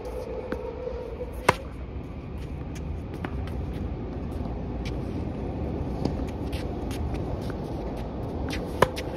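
Tennis racket striking a ball in a rally: two loud sharp hits, about a second and a half in and near the end, with fainter pops of more distant hits and ball bounces between them. A steady low rumble runs underneath.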